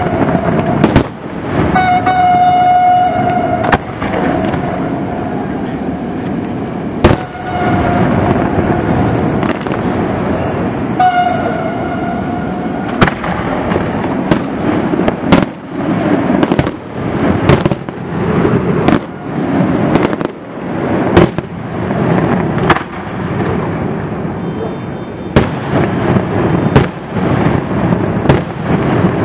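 Aerial firework shells bursting in quick succession: sharp bangs about once a second over a continuous rumble and crackle. Three or four times a steady, horn-like tone sounds for a second or two over the bursts.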